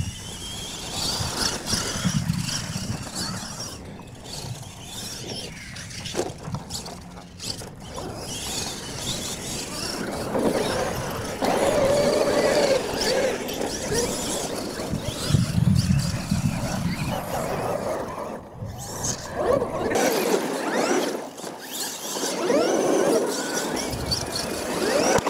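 Radio-controlled monster trucks driving on dirt: the motors and drivetrains whine, rising and falling in pitch as the trucks speed up and slow down, over the scuff of tyres in loose dirt.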